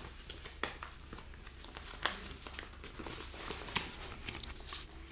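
Paper and packaging crinkling and rustling as a sheet of name-tag stickers is pulled from its envelope and handled, with scattered sharp crackles, the loudest about two seconds and nearly four seconds in.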